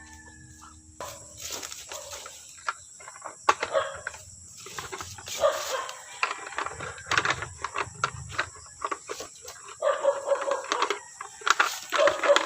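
A flock of chickens calling and squawking, mixed with irregular short knocks and rustling.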